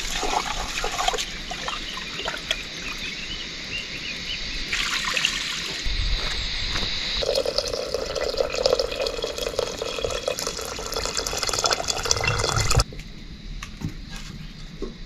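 Water pouring and trickling. The sound changes abruptly a few times and drops off sharply near the end.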